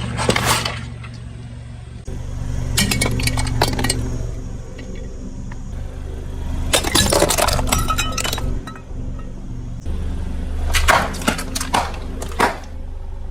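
Objects cracking and breaking under a car tyre in four bursts of crackling clicks, with a clink like glass or hard plastic, over background music and a steady low hum.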